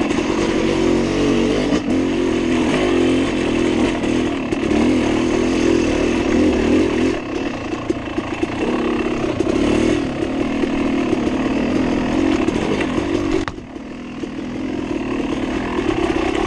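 Yamaha YZ250X two-stroke dirt bike engine under hard riding, its revs rising and falling with the throttle through the turns. About three-quarters of the way in the throttle is shut briefly and the engine note drops, then it pulls back up.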